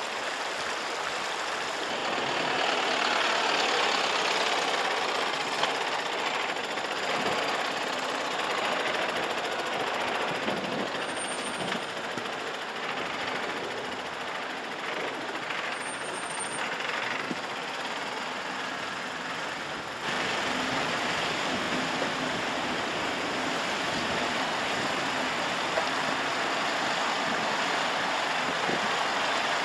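Mercedes-Benz Unimog truck's diesel engine running under load as it crawls over snowy rocks, mixed with the rush of running water. The sound changes abruptly twice, about two seconds in and about two-thirds of the way through.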